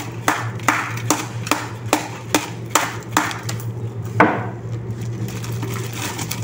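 Steady rhythmic knocking, about two or three sharp knocks a second, with one louder knock about four seconds in, after which the knocks turn fainter and less regular. A low steady hum runs underneath.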